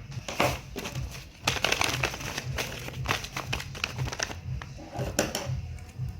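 Paper blind bag being handled and opened, with crinkling and rustling that is densest in the middle.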